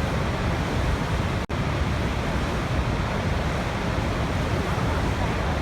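Waterfall rushing steadily, a dense roar of falling water heaviest in the low end. It cuts out for an instant about a second and a half in.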